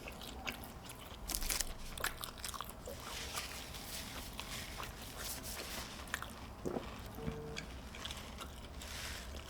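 Close-miked chewing and biting of crunchy fast food, with irregular wet crunches and mouth clicks, loudest about a second in.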